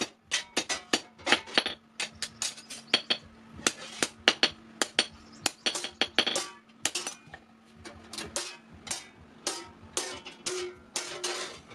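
Hand hammer striking hot steel on an anvil, forging a sickle blade. The blows come in a quick, uneven rhythm of about three a second, and each one rings briefly.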